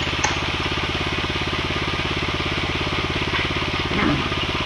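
An engine running steadily at a constant speed, with a fast, even pulsing beat.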